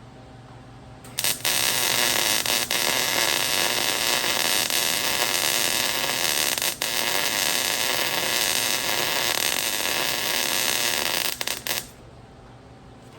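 Electric welding arc burning steadily with an even crackling hiss for about ten seconds, striking with a few sputters about a second in and breaking off near the end.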